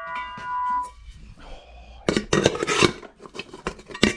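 Sharp metallic clinks and knocks in quick clusters, a bunch about two seconds in and another near the end, as the steel shell of an M42 helmet is handled.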